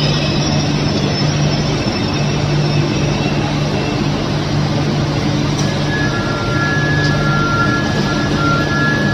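Electric commuter train standing at the platform with its auxiliary equipment running: a steady loud rush with a constant low hum. From about six seconds in, an intermittent two-note electronic beeping sounds.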